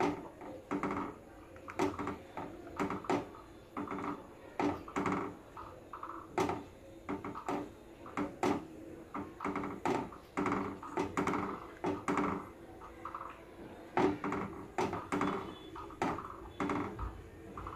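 Wooden spatula stirring and scraping milk in a metal saucepan, a run of irregular scrapes and knocks about one to two a second. The milk is being reduced and the sides and bottom scraped so it doesn't catch.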